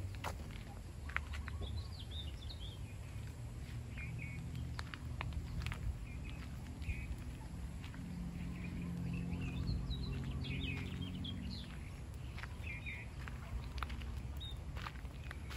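Small birds chirping and singing on and off over a low outdoor rumble, with footsteps and scattered clicks as someone walks along a nursery path. A low hum swells in about halfway through and fades a few seconds later.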